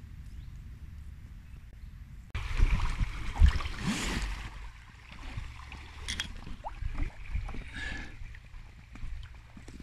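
Paddling an inflatable kayak through choppy, fast-flowing river water: splashing and rushing water with paddle strokes and knocks. It starts with only a low wind rumble on the phone microphone, turns suddenly loud about two seconds in, then settles into quieter, scattered splashes.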